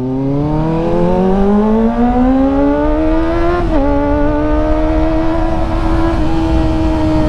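Kawasaki ZX-25R's four-cylinder engine through an IXIL slip-on exhaust, revs climbing steadily under acceleration for about three and a half seconds. A brief dip follows, like a gear change, and then the engine holds high, steady revs.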